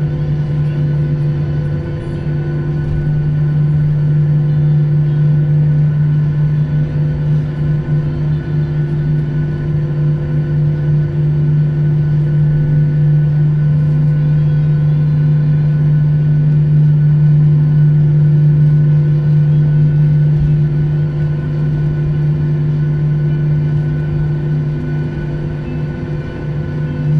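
Jet airliner's engines and cabin air running in a steady drone, with a strong constant low hum and several fainter steady tones above it, no rise in pitch or loudness.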